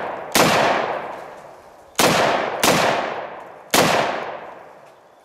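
Ruger Mini-14 semi-automatic rifle in .223 firing four shots at an uneven pace, two of them about half a second apart. Each crack is followed by a long echo that dies away over about a second.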